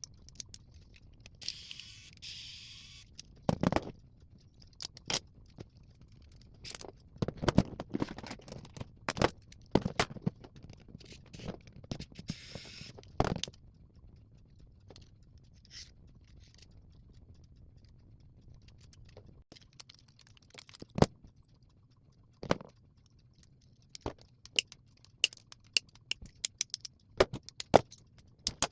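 Irregular clicks, knocks and scrapes of radio parts being handled and pried apart by hand, with a quieter stretch in the middle and a quick run of sharp clicks near the end.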